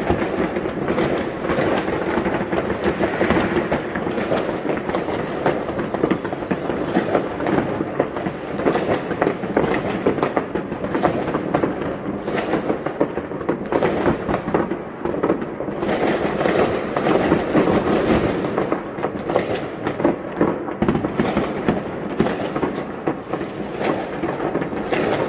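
Dense, continuous barrage of New Year's fireworks: many overlapping bangs and crackles with no pause, and now and then a short falling whistle. It sounds like war.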